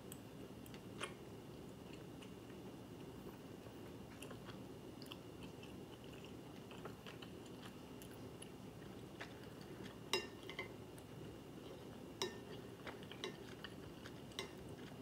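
Quiet chewing of chewy fried rice cakes, with scattered light clicks of metal chopsticks against a ceramic plate; the sharpest clicks come about ten, twelve and fourteen seconds in.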